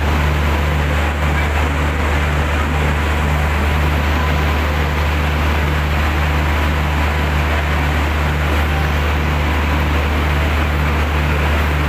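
Electric locomotive standing powered up with its pantograph raised, giving a loud steady low hum with a regular on-off pulsing tone a little over once a second.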